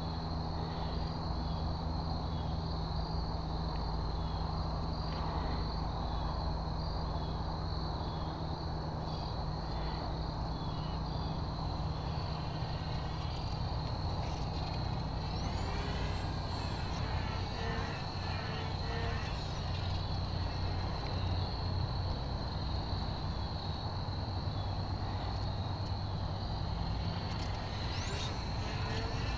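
Insects chirping steadily in a high, evenly pulsing trill, over a low steady hum.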